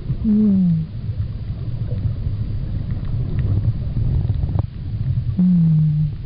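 Underwater sound on a scuba dive: a steady low rumbling churn of water, broken twice by a short moan falling in pitch, once just after the start and again near the end.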